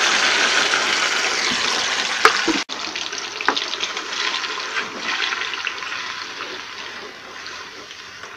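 Blended dried-chili spice paste sizzling in hot oil in a pot as it is sautéed, with a few knocks from the metal ladle stirring it. The sizzle is loud at first, drops sharply about two and a half seconds in, then slowly fades.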